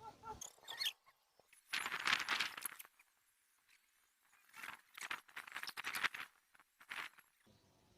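Short bursts of rustling and scraping, in three clusters with quiet gaps between.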